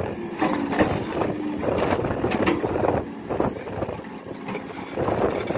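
JCB 3CX backhoe loader's diesel engine running under load while the backhoe digs, with sharp cracks and crunches several times as the bucket tears through shrubs and soil.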